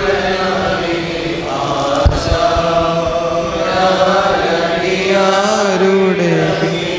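Voices chanting a Malayalam liturgical hymn in slow, drawn-out melodic lines, with a single short knock about two seconds in.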